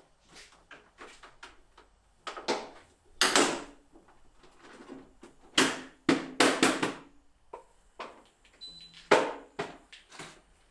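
Irregular knocks, clacks and rustles of objects being handled, a dozen or more separate hits. The loudest come about three seconds in, in a cluster around six seconds, and about nine seconds in.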